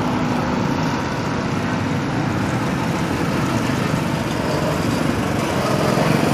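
Go-kart's small engine running steadily as the kart drives toward the microphone, getting a little louder near the end.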